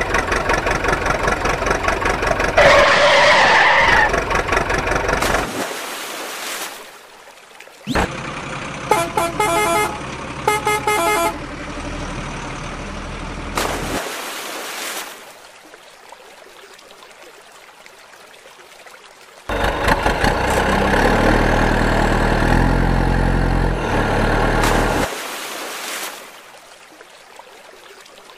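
Truck horn and engine sounds in separate bursts. There is a loud horn blast about three seconds in and a run of short toots around ten seconds. A louder stretch of engine noise comes later, with quieter gaps between the bursts.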